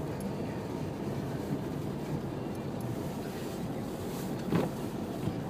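Mitsubishi L200 pickup running steadily as it drives through deep snow, with a single knock about four and a half seconds in.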